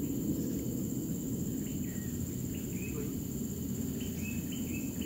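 Forest ambience: a steady high insect trill with short, repeated chirping calls from about two seconds in, coming more often near the end, over a steady low rumble.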